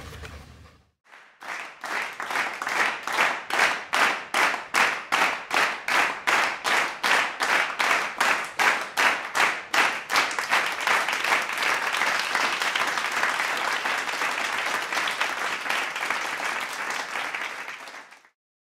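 A crowd clapping in unison, about two and a half claps a second, then breaking into continuous applause about ten seconds in, which cuts off suddenly near the end.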